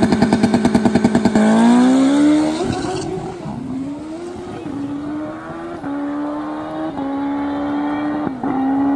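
Stretched-swingarm Suzuki Hayabusa drag bike's engine stuttering rapidly at the starting line, then launching down the drag strip. Its note climbs and shifts up through the gears about once a second, fading as the bike pulls away.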